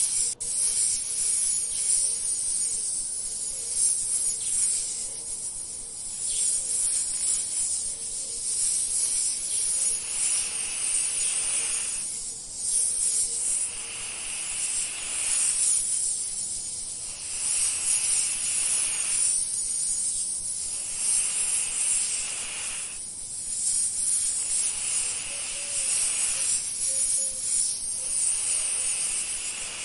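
Outdoor insect chorus: a steady high buzzing trill, with a second, lower insect call swelling and fading in phrases of a second or two every few seconds.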